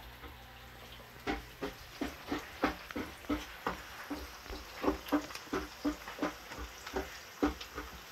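Wooden spatula stirring garlic and onion in a nonstick frying pan, knocking and scraping against the pan about three times a second over a faint sizzle of frying oil. The stirring starts about a second in.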